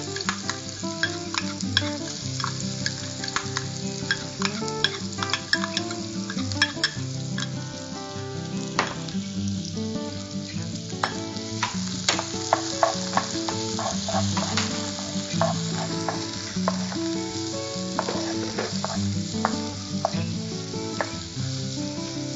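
Chopped red onions sizzling in hot oil in a nonstick frying pan, stirred with a spatula that clicks and scrapes against the pan many times.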